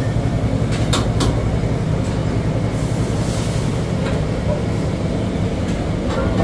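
Steady low mechanical hum of kitchen equipment, with two sharp metal clinks of steel utensils about a second in.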